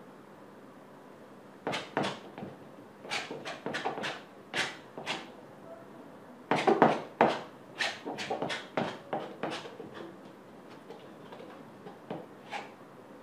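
Palette knife scraping and dabbing paint onto a stretched canvas: a string of short, quick scrapes in several runs, the loudest about halfway through.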